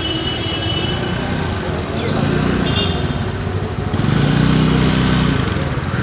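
Street traffic: a steady low rumble of vehicle engines, swelling twice as vehicles pass, with people talking in the background.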